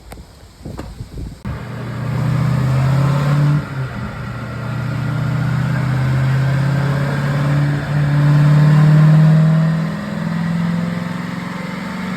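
Car engine running under load after a few knocks at the start, its pitch climbing for several seconds, dipping briefly, climbing again and easing off near the end.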